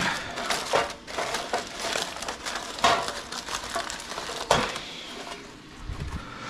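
Aluminium foil crinkling as it is pulled off a tray and crushed by hand into a ball, with sharp crackles at the start and again about 3 and 4.5 seconds in, easing off near the end.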